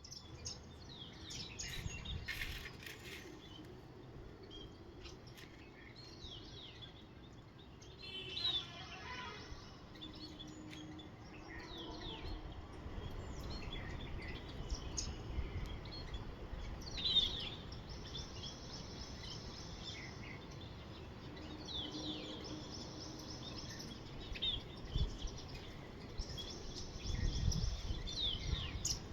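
Birds chirping over steady outdoor background noise, with repeated short, falling calls and a brief trill. A low rumble comes twice near the end.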